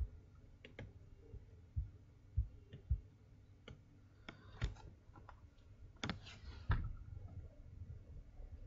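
Irregular computer mouse and keyboard clicks, about ten scattered sharp taps, some in quick pairs.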